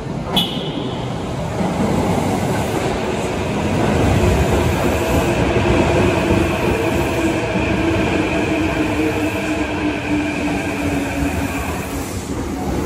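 Kintetsu 7020 series subway train sounding one short, high electronic horn beep as it enters the station, then rolling in along the platform with wheel-on-rail noise and a whining VVVF inverter drive that slowly falls in pitch as the train brakes.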